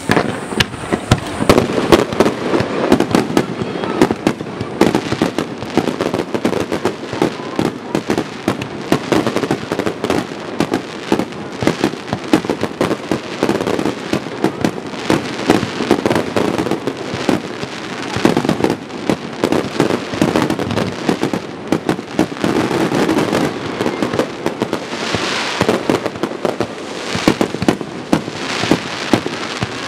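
Fireworks display barrage: many shells bursting in quick, overlapping succession, a dense run of bangs that starts suddenly and goes on without a break. There is more high hiss and crackle in the last few seconds.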